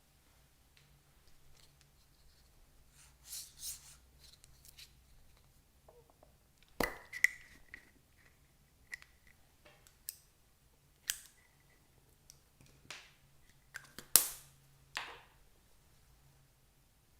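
A string of irregular sharp clicks and snaps, about a dozen, with the loudest a little before halfway and again near the end.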